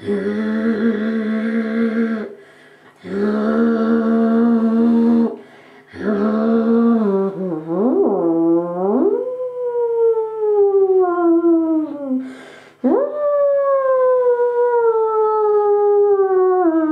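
A woman's wordless vocalizing: two steady held notes of about two seconds each, then a note that wavers up and down, followed by long, slow downward glides in pitch. A brief hiss comes between the last two glides.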